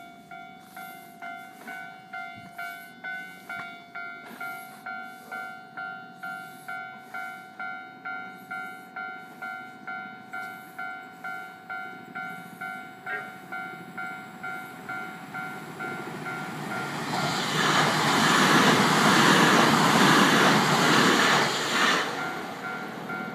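Japanese level-crossing alarm bell ringing steadily, just under two dings a second. About two thirds of the way through, a Keio 1020 series electric train passes over the crossing: a loud rush of wheels on rail that swells, lasts about five seconds and drowns the bell, which rings on as the train clears.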